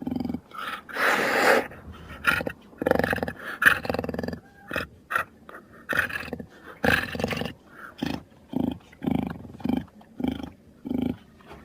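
Jaguar giving a series of short, rasping grunts and growls, roughly one a second, with a longer snarl about a second in.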